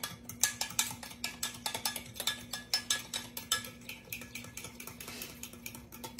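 A fork stirring baking soda into buttermilk in a plastic cup, clicking against the sides about three times a second. The baking soda makes the buttermilk foam and swell.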